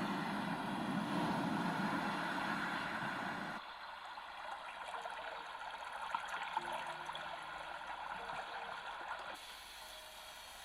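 Yogasleep Whish white noise machine playing a steady rushing noise, which switches abruptly to a thinner, quieter sound about three and a half seconds in and to a fainter hiss near the end, as it steps through its sound settings.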